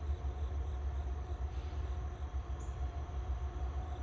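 Low, steady rumble of a distant diesel locomotive approaching on the track.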